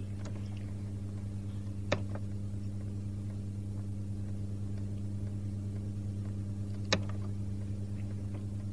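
Steady low electrical hum with faint hiss from an old home recording, broken by two short clicks, about two seconds in and again near seven seconds.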